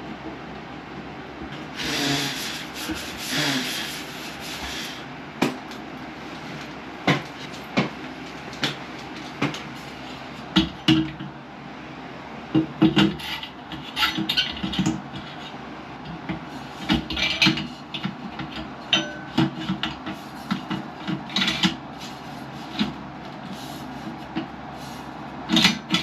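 Exhaust fan parts being handled and worked into place by hand: a scraping rub lasting a few seconds, then a long run of scattered knocks and clicks.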